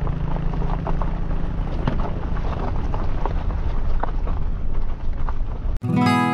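Changan Oshan X7 SUV driving on a bumpy gravel track: steady engine and road rumble with scattered small knocks and rattles. It cuts off suddenly near the end and strummed acoustic guitar music begins.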